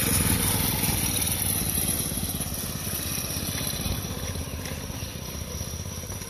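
Predator 212 single-cylinder four-stroke engine on a minibike running as the bike rides away, its sound fading gradually.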